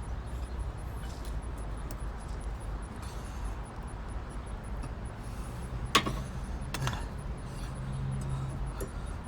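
Two sharp metallic clicks, about six and seven seconds in, from tools and brake parts being handled during a rear brake pad change, over a steady low background rumble.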